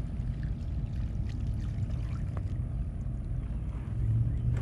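Steady low outdoor rumble with a few faint ticks, growing louder about four seconds in.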